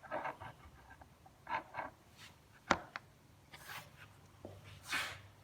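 Light handling of metal cabinet hinge plates and hardware: a few short scrapes and rubs, with a sharp click about two and a half seconds in.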